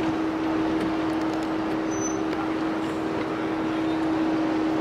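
2021 Ford Bronco crawling down a rocky trail on its hill-assist mode with no pedal input: engine and drivetrain noise with one steady hum.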